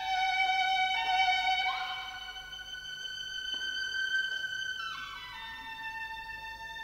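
Orchestral music: a violin line plays a slow, sweet melody in long held notes. It slides up in pitch about two seconds in and glides down again near the end.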